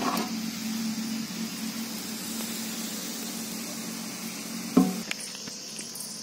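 Steady high-pitched chirring of insects, with a low hum that fades after the first second or so. A single sharp knock comes near the end.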